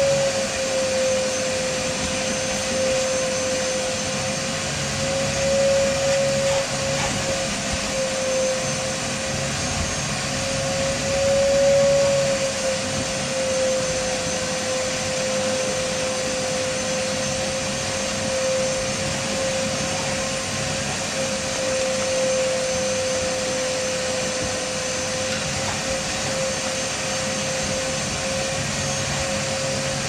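Steady machine drone: a single held whine that wavers slightly in pitch over an even rushing hiss.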